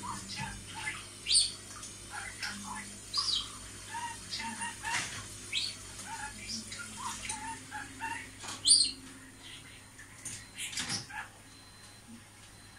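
Budgerigar warbling: a quick, irregular string of chirps, clicks and squeaks, with a few louder sharp chirps, thinning out near the end. A steady low hum runs underneath.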